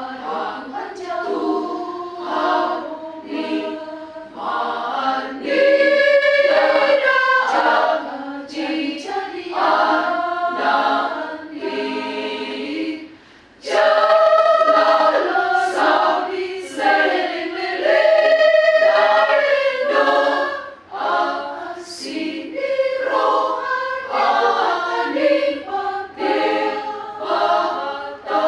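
A choir singing in several phrases, with a short break about halfway through.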